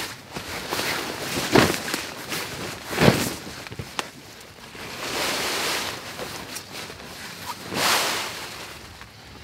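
Rustling and scuffing handling noise from a tarp being pitched, coming in uneven swells with a few sharp knocks; the loudest swells come about a second and a half, three seconds and eight seconds in.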